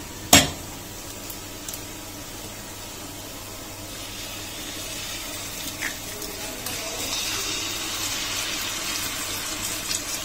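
Frying pan of sautéed tagarninas sizzling steadily in hot oil, with one sharp knock just after the start. The sizzle grows louder in the second half as a goose egg is cracked into the pan.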